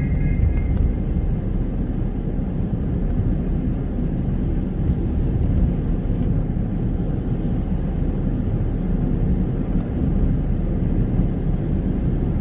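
Car driving on a rain-wet road, heard from inside the cabin: a steady low rumble of tyres and engine.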